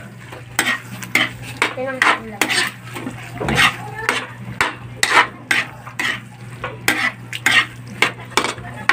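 A metal spatula scraping and stirring around a steel wok through a thick mixture of grated santol and coconut milk, in short scraping strokes about two a second.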